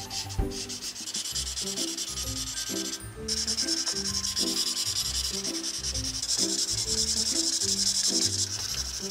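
Felt-tip marker scrubbing back and forth on notebook paper while colouring in a swatch: a continuous scratchy rubbing that breaks off briefly about three seconds in and grows louder near the end.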